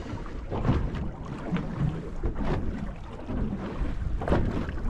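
Wind buffeting the microphone and water slapping against a small boat's hull, with a few short knocks.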